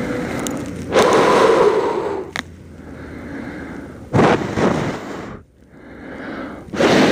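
Three forceful breaths, each a rushing huff of air about a second long and roughly three seconds apart, blown against an electrically heated motorcycle face shield to try to fog it. The shield stays clear.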